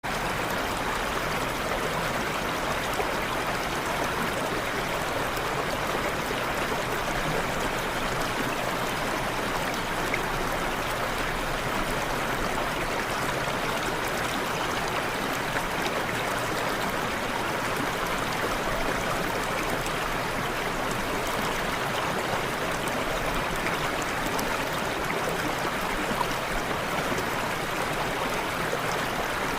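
Steady rushing of running water at a fish pond, an even flow with no pauses.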